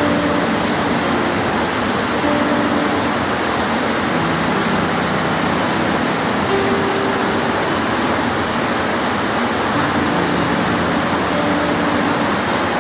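Steady, even rain hiss, with faint brief low tones surfacing here and there underneath.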